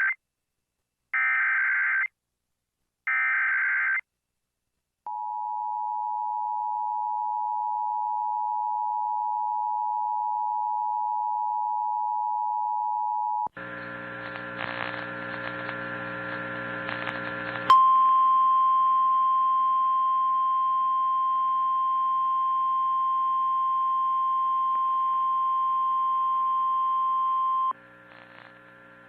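Emergency Alert System tones: three short buzzy bursts of SAME digital header data, then the two-tone EAS attention signal held for about eight seconds. After a few seconds of buzzing hum, the NOAA Weather Radio 1050 Hz warning alarm tone sounds steadily for about ten seconds, announcing the next tornado warning.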